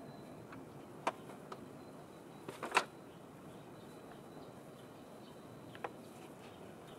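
A few light metal clicks and taps as a metal mounting bar is handled and fitted against the radiator support, the loudest a quick cluster of clicks near the middle, over a faint steady background.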